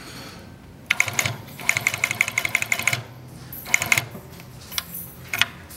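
Atlas AT9910D post-bed industrial sewing machine stitching through thick layered leather, its needle going in a rapid, even clatter of stitches for about two seconds, then a short second burst.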